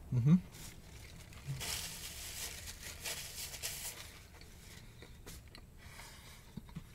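McDonald's paper food wrapper crinkling and rustling as it is handled, densest about one and a half to four seconds in, with a few small clicks after.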